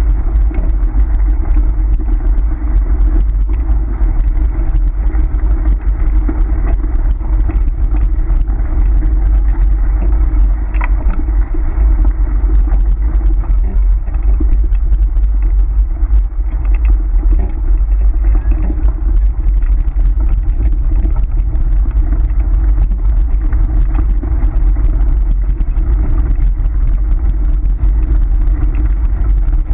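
Dog scooter rolling at speed over a dirt and gravel track: a steady low rumble of its wheels on the loose surface.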